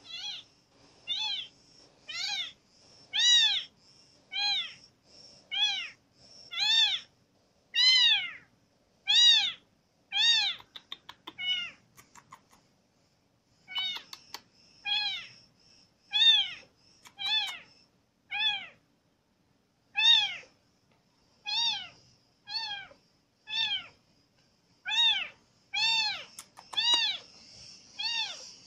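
Young ginger kitten meowing over and over, about one high cry a second, each rising then falling in pitch, with a short pause a little before halfway.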